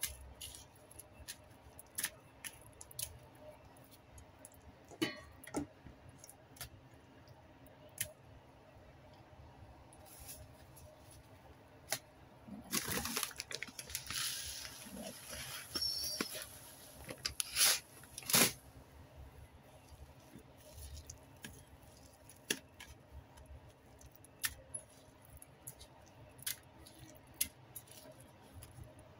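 Hands pressing raw chicken pieces into breadcrumbs in a stainless steel bowl: scattered light taps and clicks with rustling crumbs, a longer stretch of rustling about halfway through, then two sharper clicks.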